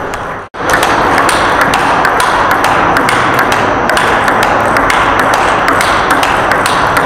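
Table tennis ball clicking repeatedly off paddle and table in a rally, a few sharp ticks a second, over a dense steady background noise. The sound drops out briefly about half a second in.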